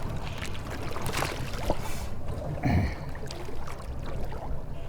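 Small bay boat on open water: a steady low rumble of water and wind around the hull, broken by a few short knocks and splashes, the strongest about a second in and just before the middle.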